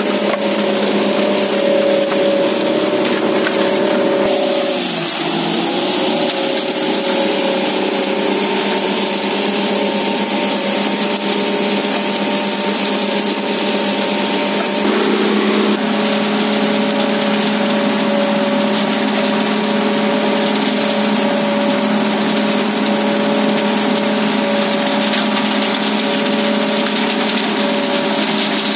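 Engine of an Ajax Fiori Argo 2000 self-loading concrete mixer running steadily. Its note dips briefly and recovers about five seconds in, and changes tone about halfway through.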